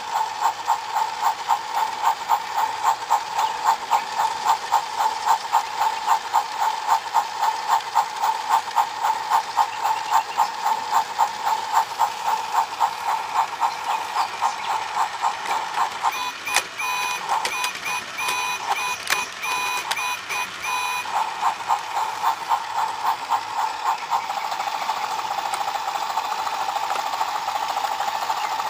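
Battery-powered Thomas and Friends toy train playset running, its motors and gears clicking rhythmically about three times a second. A run of short electronic beeps sounds from about halfway through, and near the end the clicking blurs into a steadier buzz.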